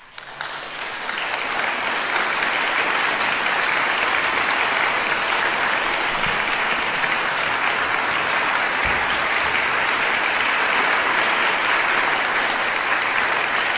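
Audience applauding, building over the first couple of seconds and then holding steady.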